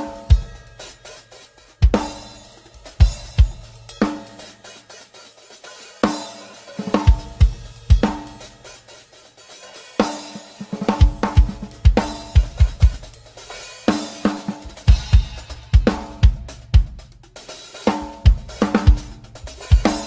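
Drum kit being played for a sound check: kick drum, snare, ringing toms and cymbals in short grooves and fills. The hits are spaced out for the first few seconds, then come in quick runs, with brief pauses between phrases.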